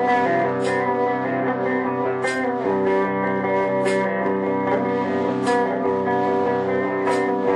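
Background guitar music with a light, regular beat.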